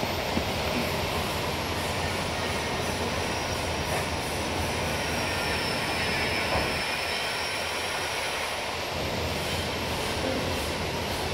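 Metal-cutting band saw running: a steady mechanical noise with a thin high whine that sags slightly in the middle and rises again.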